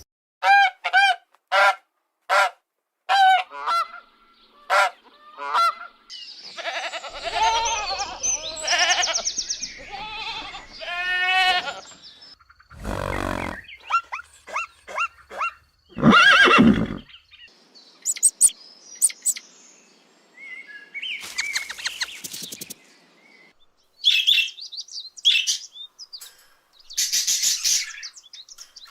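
A series of different animals' calls, one kind after another. It opens with about ten short pitched calls in a row over the first six seconds, followed by other calls, a few loud noisy blasts and high chirps.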